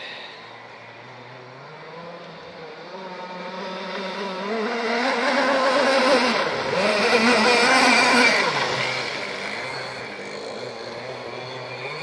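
A Blackjack 55 RC racing boat's two-stroke petrol engine running at high speed as the boat approaches and passes. It grows steadily louder, is loudest around six to eight seconds in, then fades as the boat moves away.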